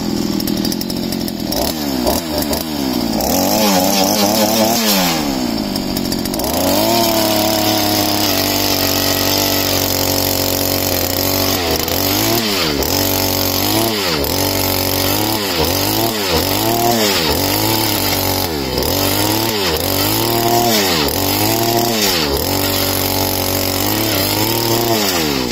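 NTM TB25 petrol earth auger's two-stroke engine running hard as the spiral bit bores into the soil. Its pitch rises and falls in the first few seconds, then holds high; from about halfway it dips sharply and recovers about once a second.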